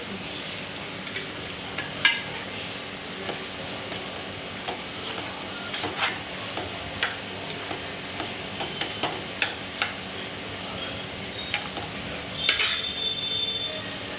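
A metal spoon stirring a pot of chicken curry, scraping and clicking against the pan over a steady low hiss, with a louder ringing clank near the end.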